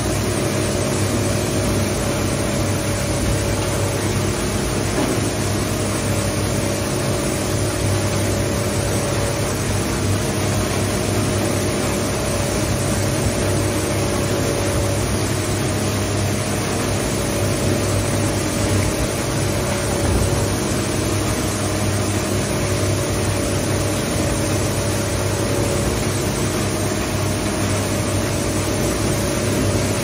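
Industrial shredder running steadily, its motor humming under a continuous grinding noise as the toothed cutting shaft chews into a large white block in the hopper.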